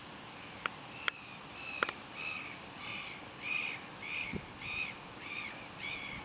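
Three sharp clicks, then an animal calling in a run of about eight short, high-pitched calls about half a second apart.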